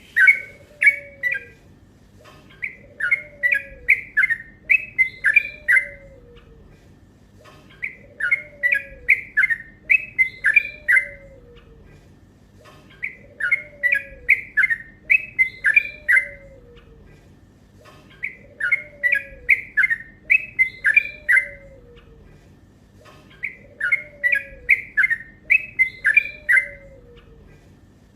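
Yellow-vented bulbul (trucuk) singing a long, rapid, chattering song phrase that repeats about every five seconds, five times over. A fainter, lower falling note recurs about once a second underneath.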